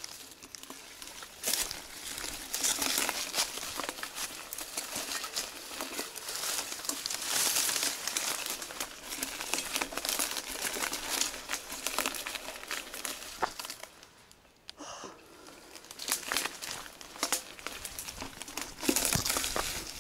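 Dry leaf litter and gravel crunching and crackling in a dense run of small clicks on a forest road, fading to a brief lull about two-thirds of the way through before picking up again.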